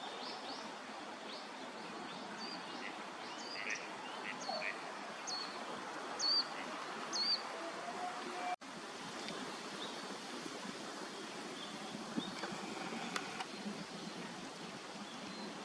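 Pond-side outdoor ambience with a steady hiss, a string of short, sharp high chirps from a small bird in the first half, and a few faint, lower duck calls. The sound drops out for an instant just past halfway.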